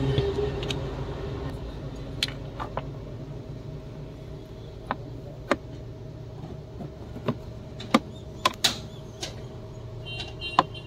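Scattered sharp plastic clicks and knocks as the cabin AC filter housing under a Tata Tiago's dashboard is unclipped and the filter worked out, over a steady low hum.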